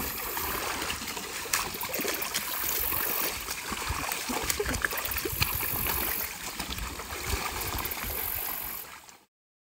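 Shallow river water sloshing and splashing as a large tractor tire is rolled and pushed upright through it by people wading, with scattered short knocks and splashes. The sound cuts off abruptly about nine seconds in.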